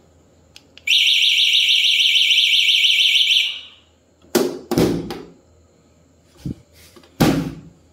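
Bajaj Chetak electric scooter's alarm, set off from its key fob: a loud pulsing electronic tone for about three seconds, starting about a second in. Several loud thumps follow.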